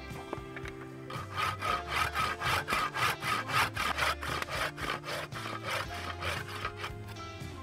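Hand saw cutting through a short round stick of wood in quick back-and-forth strokes, about four a second. The strokes start about a second in and fade near the end.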